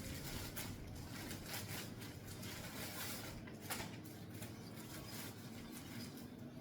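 Packaging rustling and crinkling in quick irregular bursts as a parcel is unwrapped by hand.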